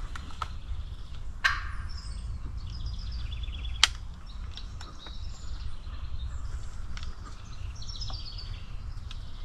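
Songbirds singing and trilling over a steady low rumble, with a short loud call or scrape about a second and a half in and one sharp click a little before four seconds.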